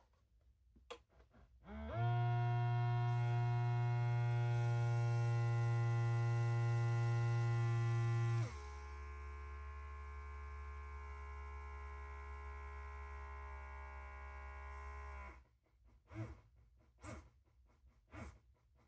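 A steady electrical buzzing hum with many overtones, which drops lower and quieter about halfway through and then stops, followed by a few short clicks near the end.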